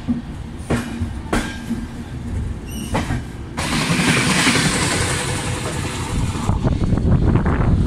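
Indian Railways passenger train running, heard from its open doorway: a few sharp wheel clicks over rail joints, then at about three and a half seconds a sudden loud rushing noise as another train passes close by. Near the end it turns into a dense clattering rumble of wheels on track.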